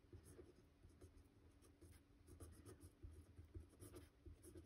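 Faint scratching of a pen writing on a postcard in short, irregular strokes.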